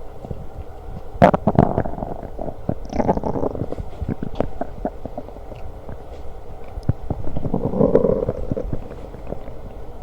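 A person's stomach growling and gurgling during a meal, in squelchy bouts about a second in, around three seconds in, and near eight seconds.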